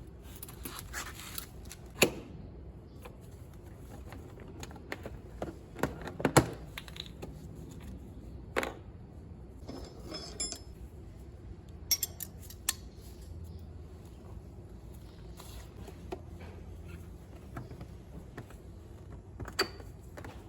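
Metal hand tools clinking and knocking during spark plug work on a scooter: scattered light clicks, with a few sharper knocks.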